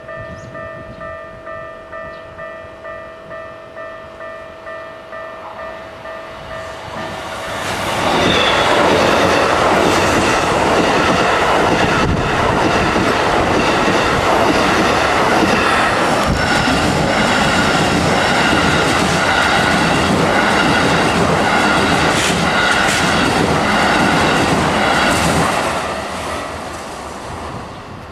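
Japanese level-crossing bell ringing about twice a second. Then two Keikyu electric trains, a 2000 series and a 1000 series, pass each other at the crossing: loud running noise and wheel clatter drown the bell for nearly twenty seconds, then fade away near the end.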